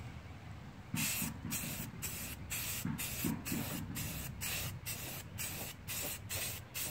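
Aerosol spray-paint can hissing in short repeated bursts, about two or three a second, starting about a second in, as paint is sprayed onto a plastic radiator fan shroud.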